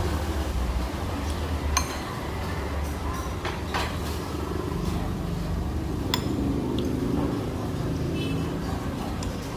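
Spoon clinking against a bowl of bakso in a few short, separate taps while eating, over a steady low rumble of vehicle engines.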